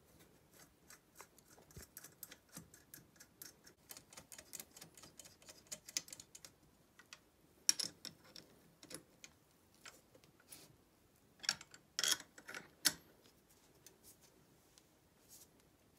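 Light metallic clicks and ticks of a spanner and small steel parts working on the valve rocker assembly of a Fiat 126 BIS cylinder head. A quick run of faint ticks comes first, then a few louder clinks about 8 s in and again around 12 to 13 s in.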